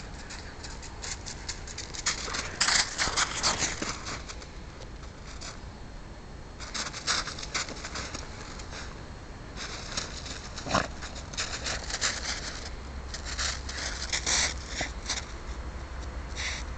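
Laekenois puppy digging and nosing in snow: bursts of quick crunching and scratching with short pauses between.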